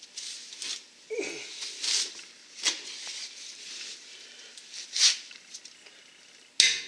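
Hand tools working on grade 8 bolts as the disc brake bracket is fitted and torqued: scattered metal clicks and clinks at irregular intervals, with a short falling squeak about a second in and a sharp click near the end.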